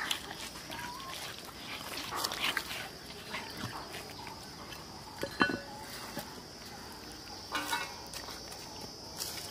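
Cleaver chopping and pressing through the neck of a large magur catfish on a wooden stump, with scattered knocks and wet crunches. The sharpest knock comes about halfway through.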